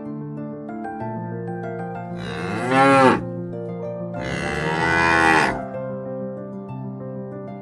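A cow mooing twice over soft background music: first a shorter call, then a longer one.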